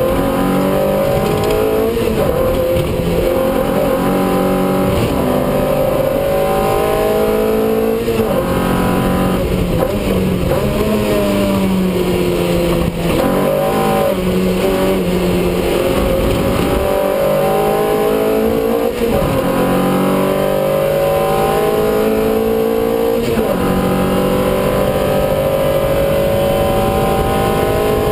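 Lotus race car's engine heard from inside the cockpit at racing pace, the note climbing through each gear and dropping back at the gear changes and braking points several times.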